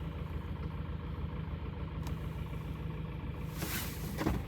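Kia Optima's G4KD 2.0-litre four-cylinder petrol engine idling steadily with a clanging, clattering piston knock. It is the sign of early scuffing on the pistons and cylinder walls, in at least two cylinders.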